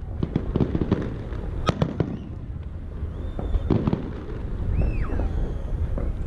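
Fireworks display: aerial shells bursting in an irregular series of bangs and crackles, a few of them heavy booms. A few short whistles glide in pitch in the second half.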